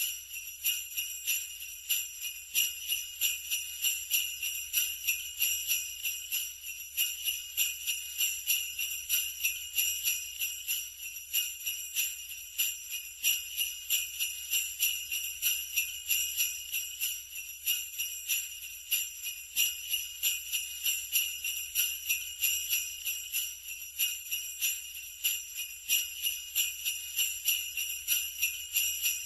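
Sleigh bells jingling continuously, shaken in a steady rhythm.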